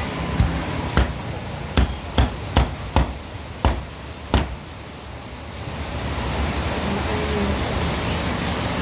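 A meat cleaver chopping grilled pork belly on a thick round wooden log chopping block: about eight sharp, uneven chops in the first four and a half seconds, then the chopping stops.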